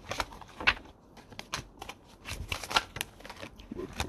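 Tarot cards being handled and shuffled: an irregular run of sharp card snaps and short slides.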